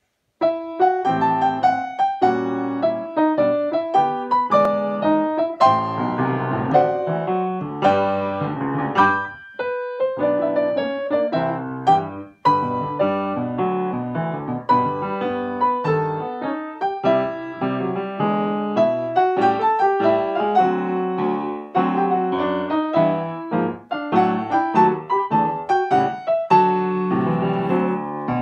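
Acoustic piano played four hands as a duet, a continuous run of chords and melody with two short breaks.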